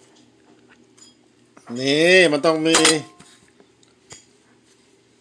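Light clinks of a plate and utensils. About two seconds in comes a loud, drawn-out vocal exclamation lasting about a second, its pitch rising and then falling.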